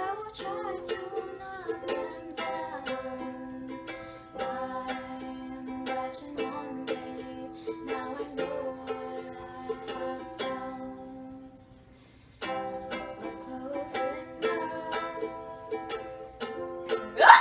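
A plucked string instrument playing a slow melody with chords, note after note, breaking off briefly about two-thirds of the way through before carrying on.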